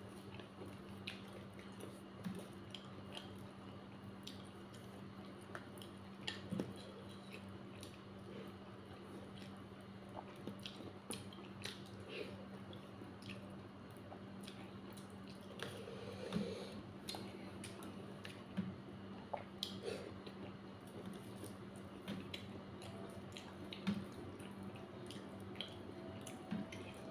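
Close-up mukbang eating of dhedo, a thick Nepali mash, and side dishes: soft wet chewing and squishing with many small scattered mouth clicks and smacks, over a steady low hum.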